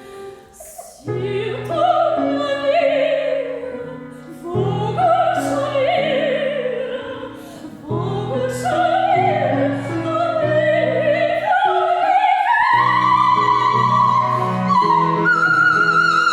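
Operatic soprano singing with vibrato over piano accompaniment, the piano striking fresh chords about one, four and a half and eight seconds in. The vocal line climbs higher in the second half and ends on a sustained high note.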